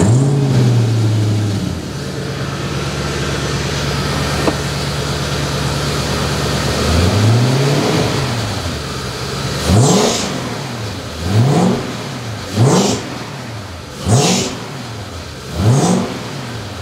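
Audi V8 engine, swapped into a Porsche Boxster, idling steadily just after starting. From about seven seconds in it is revved in six quick throttle blips, each rising and dropping back, about one every second and a half.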